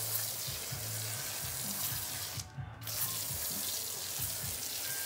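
IK Foam Pro 2 pressure sprayer hissing steadily through its foamer nozzle as it lays cleaner foam over rubber floor mats. There is a short break about two and a half seconds in.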